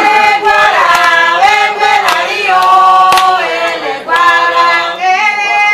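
Several voices singing an Afro-Cuban folkloric chant together in long held notes, with a few sharp claps.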